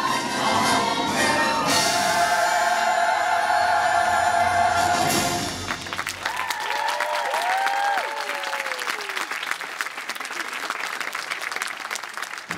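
Orchestral music with choir holds a big final chord to end a stage musical's finale. About six seconds in the music stops and the theatre audience breaks into applause and cheers, which carry on as the stage goes dark.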